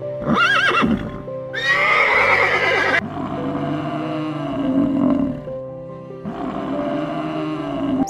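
A horse whinnying twice in the first few seconds, the second call louder and falling in pitch. Then come two long, low calls from a water buffalo, over steady background music.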